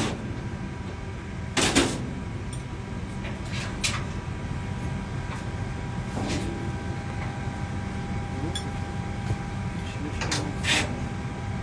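A few knocks and clanks from a large green steel animal cage being handled, the loudest about two seconds in and two more close together near the end, over a steady low hum inside an aircraft cabin.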